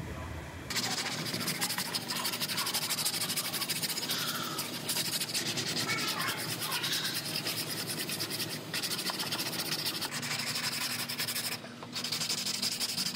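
Hand sanding of body filler on a car's steel rocker panel with a long sanding block: a steady, rapid scratchy rasp of sandpaper strokes, with a short pause near the end.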